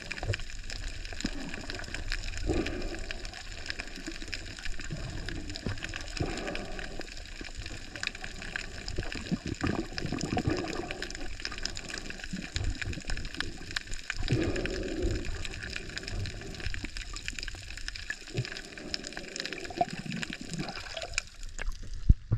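Underwater sound from a moving camera: muffled water sloshing and rumbling in uneven surges, with a faint steady high whine underneath. Near the end the camera breaks the surface and the water sound jumps louder.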